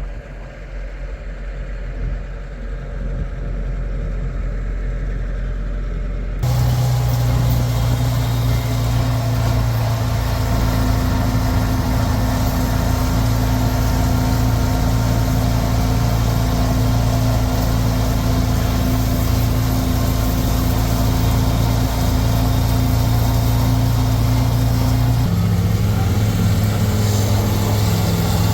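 Farm tractor engine running steadily under load while mowing a hay field, a constant low hum. The sound jumps suddenly louder and brighter about six seconds in, and its pitch shifts again near the end.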